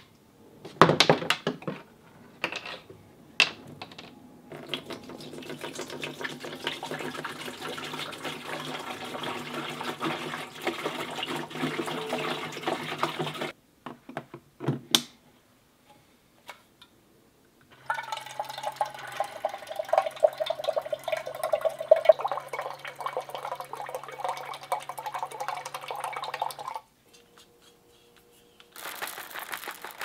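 Water poured into a Dometic Go hydration jug, then the jug's battery-powered faucet pumping water out for about nine seconds: a steady electric pump hum under the running stream, which cuts off suddenly.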